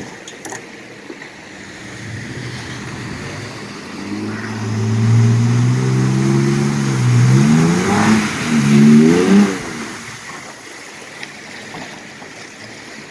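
An off-road vehicle's engine revving hard under load. It swells about four seconds in and rises and falls in pitch several times before easing off around ten seconds.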